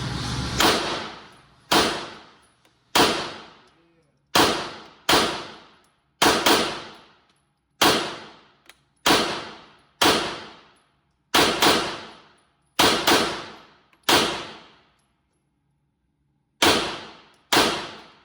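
Pistol shots fired one after another at an uneven pace, about seventeen in all, some in quick pairs, each sharp crack followed by about a second of echo.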